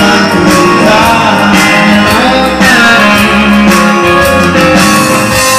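Loud music: a song with a voice singing over guitar and bass.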